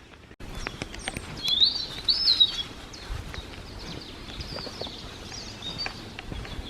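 Birds singing in woodland: a clear, warbled phrase about a second and a half in, with fainter calls following and scattered soft clicks throughout.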